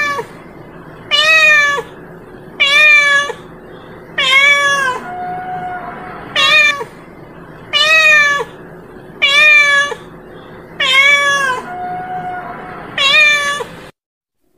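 A domestic village cat (kucing kampung) meowing over and over, about nine loud calling meows roughly one every one and a half seconds, each rising then falling in pitch. The meowing stops abruptly shortly before the end.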